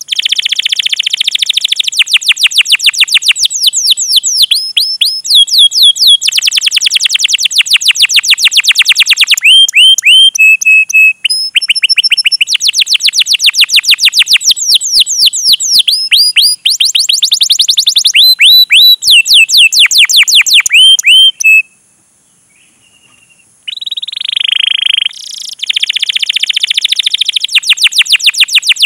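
Domestic canary singing long, fast rolls of sharp cuit-cuit chirps, about eight notes a second, in phrases that shift pitch. The song breaks off for a second or two about two-thirds of the way through, then resumes.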